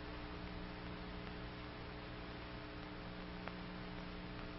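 Steady hum and hiss of an old film soundtrack, with one faint tick about three and a half seconds in.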